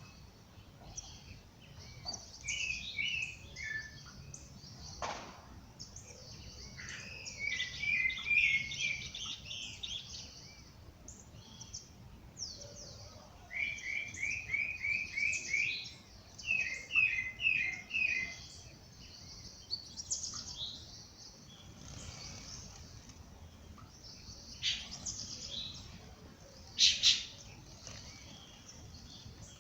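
Several songbirds singing and chirping in a dawn chorus: short calls and quick trills of repeated notes, loudest in runs around the middle.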